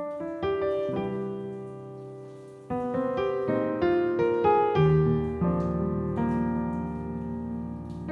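Background music: a solo piano playing a slow, gentle melody, with the notes ringing out and a new phrase coming in about three seconds in.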